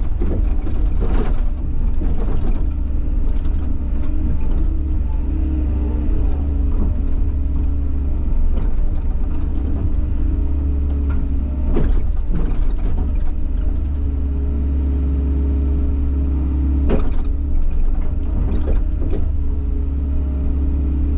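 Bobcat excavator's diesel engine running steadily under hydraulic load, with scattered knocks and scrapes from the ripper shank breaking up frozen ground.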